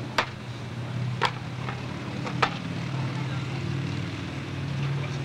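A vehicle engine idling with a steady low hum. Three short, sharp knocks come about a second apart in the first half.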